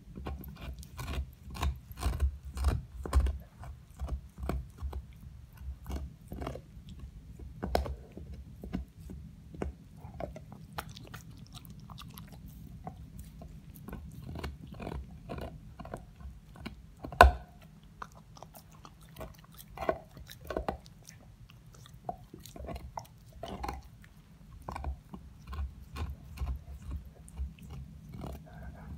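A dog gnawing on a large chew bone: irregular bites and crunches with short pauses, and one especially loud crack a little past the middle.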